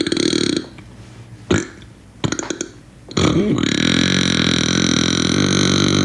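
A woman burping: a short burp right at the start, two brief sounds, then one long, drawn-out pitched burp of nearly three seconds from about three seconds in.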